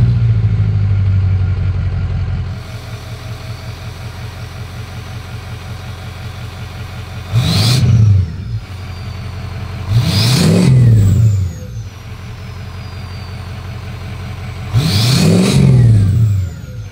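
Ford Excursion's turbo-diesel V8 idling, heard at the exhaust, and revved three times in short blips, the engine note rising and falling each time. After the blips a high turbocharger whistle slides down as the turbo spools down.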